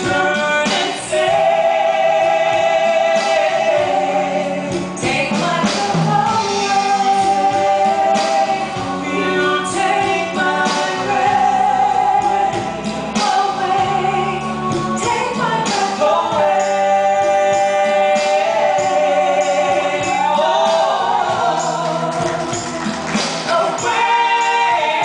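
Stage-show music with sung vocals, the singing holding long notes with vibrato over a full backing.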